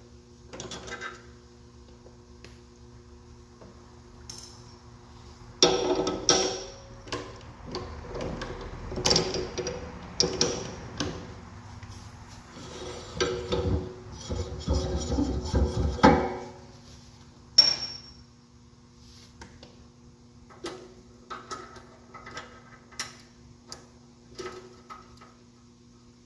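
Steel tools and parts clinking, knocking and scraping while the cutter is taken out of a homemade line-boring bar, with a busy run of clatter in the middle and scattered light taps near the end. A faint steady hum sits underneath.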